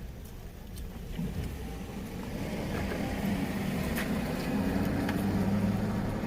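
A motor vehicle's engine running with a steady low hum, growing louder over several seconds and then easing off, as of a car passing close by.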